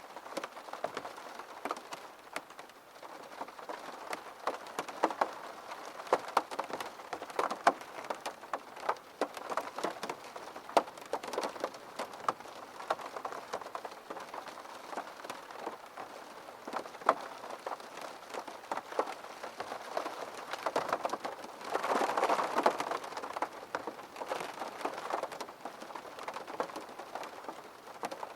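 Steady rain with many sharp, separate drop hits over an even hiss. It swells for a couple of seconds about three-quarters of the way through.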